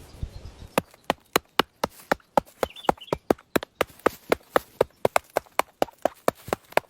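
Sharp knocks in quick, even succession, about four to five a second, starting about a second in.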